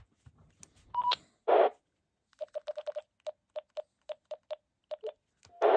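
TYT MD-9600 mobile radio running OpenGD77 firmware beeping as its keys are pressed: a few clicks and a short higher beep about a second in, a brief burst of noise, then a quick run of about a dozen short, same-pitched key beeps in the second half.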